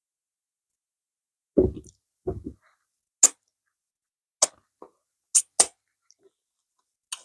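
Close-miked eating sounds from a person: two short low mouth noises, then about five sharp, wet mouth clicks and lip smacks, each separated by silence.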